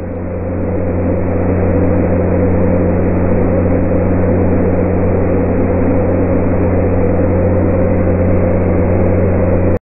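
A machine motor running with a steady hum, building up over the first second or two and then holding level until it cuts off suddenly near the end.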